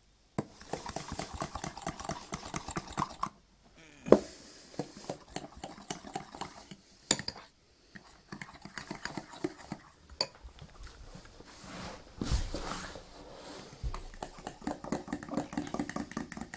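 Crêpe batter being beaten in a mixing bowl: a utensil clinks and scrapes against the bowl in quick strokes, stopping briefly twice, with a few louder knocks.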